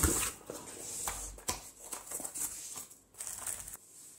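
Cardboard box and paper packaging being handled on a table: irregular rustling and sliding, with a few light knocks, stopping near the end.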